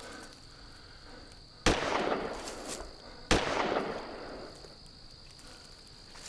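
Two gunshots about a second and a half apart, each a sudden bang that dies away over about a second. A steady high insect drone runs underneath.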